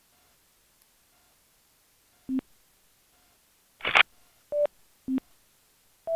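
Short electronic beeps alternating between a higher and a lower pitch, four in all, with a brief burst of noise just before the second beep, about four seconds in.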